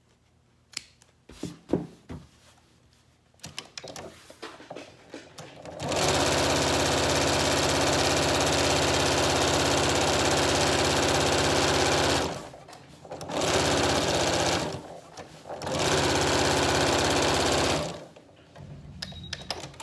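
Janome electric sewing machine stitching bias tape trim onto fabric: a steady run of about six seconds, then two shorter runs of a second or two each with brief stops between. Before it starts there are a few light clicks.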